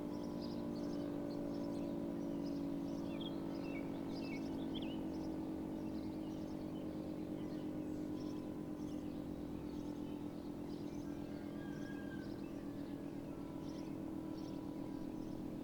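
Federal Signal 2T22 dual-tone outdoor warning siren sounding its steady Alert tone, several tones held level, with birds chirping over it.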